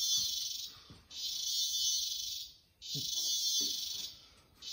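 Insects in the surrounding rainforest buzzing in high-pitched pulses, each lasting about a second and a half, repeating with short gaps.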